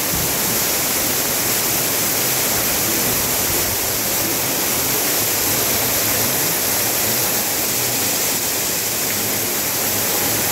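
Water jets of a splash pad spraying: a steady, even hiss.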